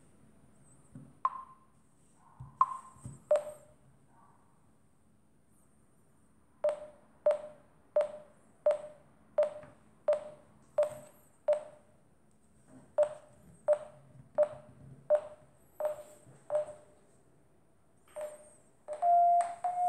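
Smartphone acoustic variometer app beeping: short beeps about one and a half a second, broken by a pause, then near the end a faster, slightly higher, almost unbroken beeping as the phone is raised, the variometer's climb signal. A few higher beeps sound in the first seconds.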